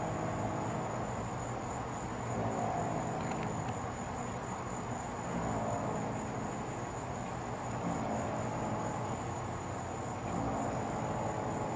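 Crickets trilling in a steady, unbroken high chorus over a low background rumble. Faint, indistinct pitched sounds rise and fall in the rumble every few seconds.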